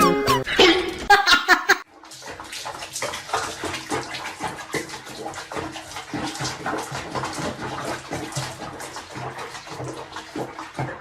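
Water running and splashing, a steady rush dense with small splashes, starting after a snatch of music that cuts off about two seconds in.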